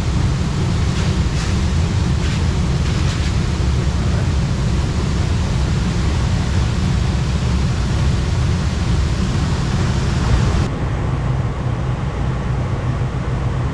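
A heavy vehicle engine running steadily, a low rumble under a broad rushing noise. About eleven seconds in, the highest part of the hiss cuts off abruptly.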